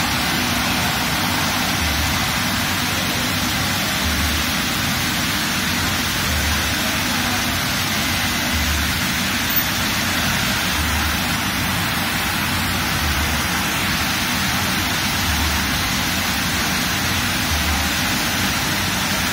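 Automatic rollover car wash running: rotating brushes and water spray working over an SUV, a steady rushing hiss with a low throb that repeats about every two seconds.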